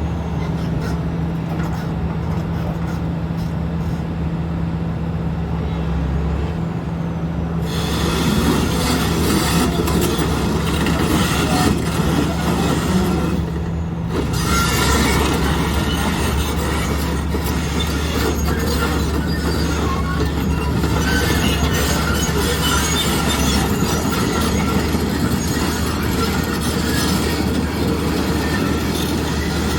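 Volvo ECR305CL excavator's diesel engine running steadily. From about eight seconds in, metal squealing and clanking join it, typical of the steel tracks travelling.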